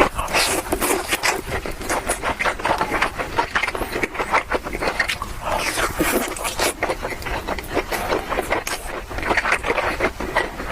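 Close-miked chewing of meat: wet mouth smacks and clicks in quick, irregular succession.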